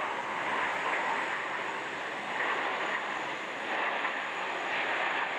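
Aircraft flying overhead: a steady rushing roar of engine noise with no clear pitch or rhythm.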